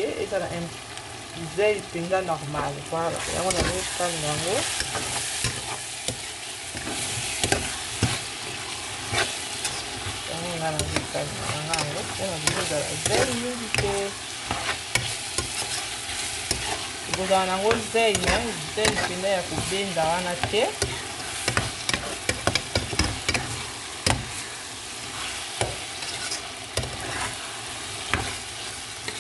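Okra, tomato and onion sizzling in a frying pan while a metal spoon stirs them, scraping and clicking against the pan. The frying hiss gets louder and brighter a few seconds in.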